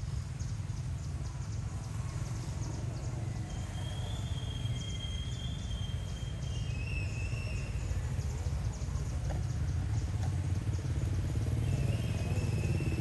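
Outdoor ambience: a steady low rumble that grows slightly louder toward the end, with faint ticking and two spells of thin, high-pitched calls, one about four seconds in and one near the end.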